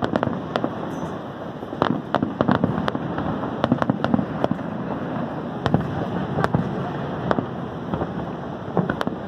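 Fireworks show going off: a string of sharp bangs and cracks at irregular intervals, thickest a couple of seconds in, over a continuous noisy background.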